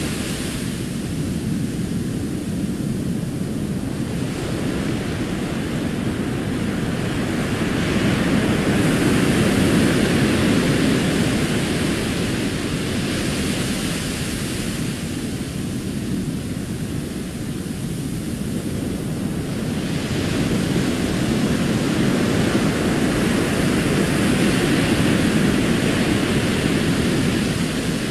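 Recorded ocean surf on a sandy beach: a steady rush of breaking waves that swells and ebbs slowly, loudest about ten seconds in and again in the second half.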